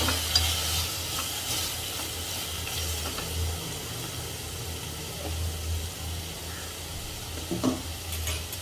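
Whole spices and dried red chillies sizzling in hot oil in a pan, a tempering for a Chettinad gravy. A spatula stirs and clicks against the pan a few times, loudest about seven and a half seconds in, over a steady low hum.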